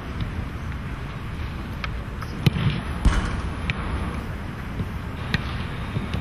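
A football being struck: a few sharp thumps of the ball, the two loudest about two and a half and three seconds in, with fainter ones scattered around them. A steady low rumble runs underneath.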